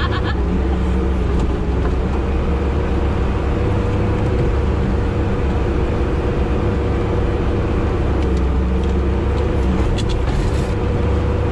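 Sherp amphibious ATV's diesel engine running steadily under load as it drives over river ice, heard from inside the cab, with a deep rumble and a steady whine over it. A few short clicks and knocks come about eight to ten seconds in.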